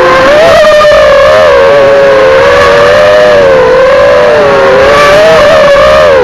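FPV drone's motors and propellers whining loudly, the pitch wavering up and down continuously as the throttle changes in flight, with a short dip near the end.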